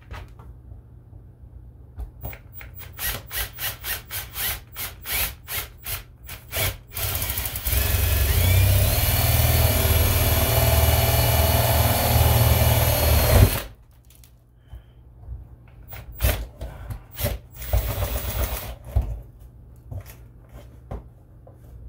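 Cordless drill boring a hole through a door. It starts in short spurts of the trigger, about three a second, then runs steadily for about six seconds with its pitch rising as it gets going, and stops suddenly. A few more short spurts follow near the end.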